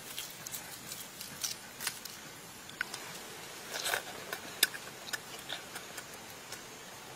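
Scattered small, sharp clicks and crackles: shell being peeled off a boiled egg by hand, then the mouth sounds of biting into the egg and chewing it.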